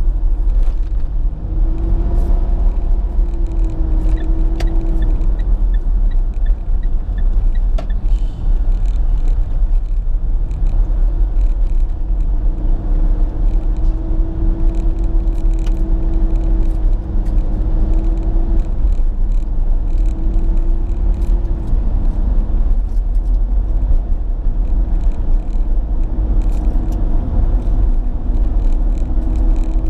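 Car cabin noise while driving: a steady low rumble of engine and tyres on the road, with a humming engine note that swells and fades every few seconds.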